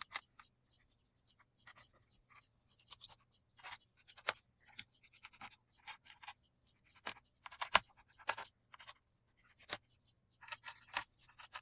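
Small T6 Torx screwdriver working the bottom-cover screws out of a laptop: irregular small clicks and scratchy scrapes of the bit turning in the screw heads and the tool tapping the case.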